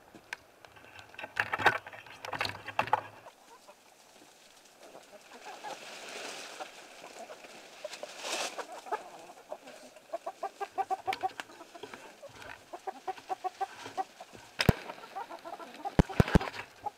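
A flock of chickens clucking in quick runs of short notes as they feed on vegetable scraps, with a few sharp clicks near the end.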